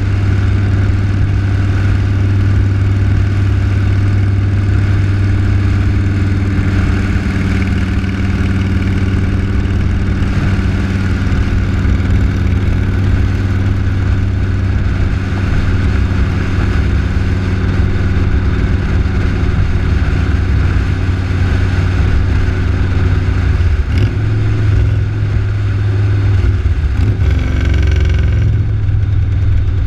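Motor vehicle engine running steadily at road speed, with wind and road noise; the engine note shifts briefly a little before the end.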